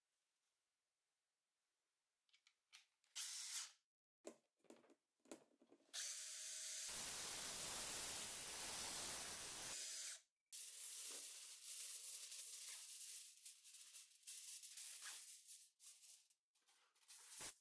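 Cordless drill with a step drill bit boring a hole through the wall of a thin plastic storage box, running steadily for about four seconds after a few handling clicks. Then aluminium foil crinkling and rustling as it is handled.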